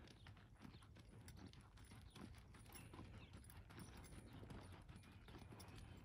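Faint hoofbeats of a horse jogging on soft arena dirt, irregular light thuds over a steady low rumble.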